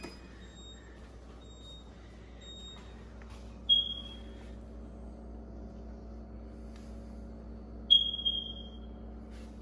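Control panel of a new French-door refrigerator's ice and water dispenser beeping as its buttons are pressed: three faint short beeps about a second apart, then two loud beeps that fade quickly, about four seconds apart. The newly plugged-in fridge hums steadily underneath.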